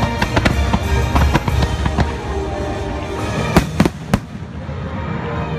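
Fireworks bursting over a bed of show music: a rapid string of sharp reports in the first two seconds, then three loud bangs in quick succession about three and a half to four seconds in.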